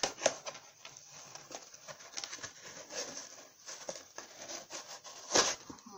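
A small packet being opened by hand: irregular rustling, crinkling and small clicks of the packaging, with one sharper, louder knock near the end.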